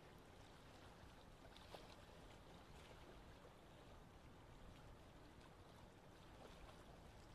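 Near silence: faint steady background hiss, with one faint tick about a second and a half in.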